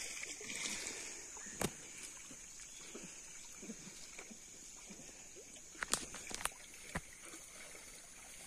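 Faint sloshing and lapping of pond water stirred by swimming dogs, with a steady high hiss over it. A few sharp clicks: one just under two seconds in, and three close together about six to seven seconds in.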